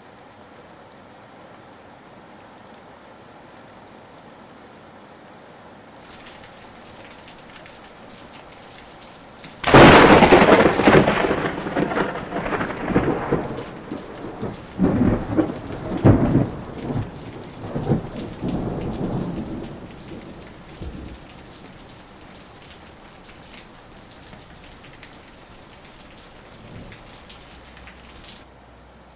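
Steady rain, then a sharp thunderclap about ten seconds in that rolls on in several loud peals for about ten seconds before fading back under the rain.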